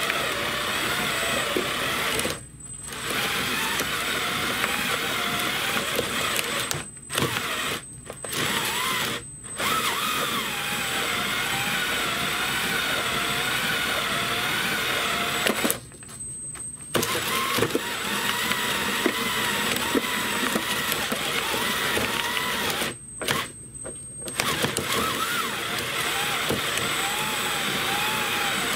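A power drill driving a 3D-printed plastic compost shredder runs steadily with a wavering pitch and a thin high whine as vegetable scraps pass through the cutter discs. The sound drops out briefly about six times.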